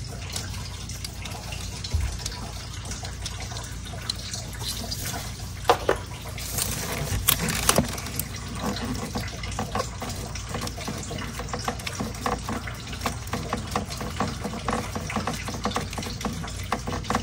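Scattered light clicks and knocks of hand tools and metal parts being handled down in an engine bay during spark plug removal, over a steady low hum.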